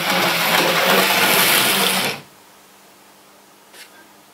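An OO gauge model locomotive's small electric motor whirring with a steady hum, then cutting out abruptly about two seconds in. It is the kind of stalling that could be the controller, dirty wheels or a poor track connection.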